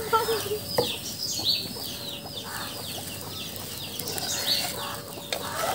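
Small birds chirping over and over in quick, high, falling notes, with a chicken clucking briefly near the start and a couple of sharp clicks.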